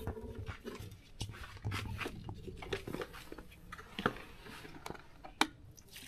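Light clicks and knocks of handling as a plastic funnel and a bottle of petrol are readied at a scooter's open fuel filler, with a sharper click about four seconds in and another near the end.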